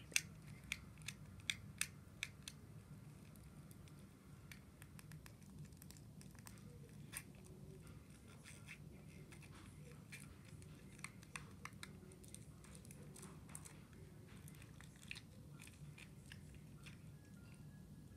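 Quiet room with a low steady hum and scattered small, sharp clicks, several in the first three seconds and a few more later on.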